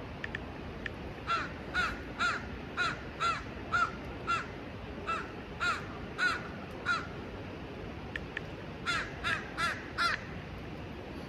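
A bird giving harsh, caw-like calls: a run of about eleven at roughly two a second, a pause, then four more in quicker succession near the end, over a steady background hiss.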